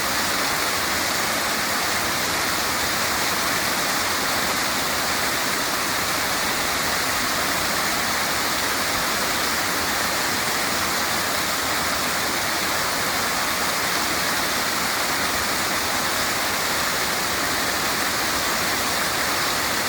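Waterfall rushing, a steady, even roar of falling water with no change.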